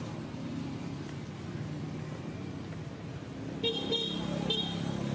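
A motor vehicle running with a steady low hum, and two short horn toots near the end.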